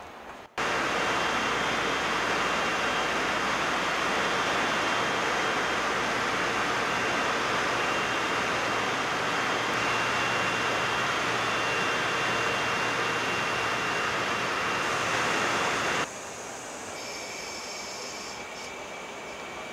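Water-test booth jets spraying a Range Rover Evoque's body, a loud steady hiss of water on the car, as in a water leak test. It cuts off suddenly about sixteen seconds in, leaving a quieter steady hum with faint high tones.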